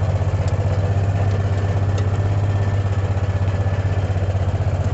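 Vehicle engine running steadily at low speed, a low hum with a rapid even pulse.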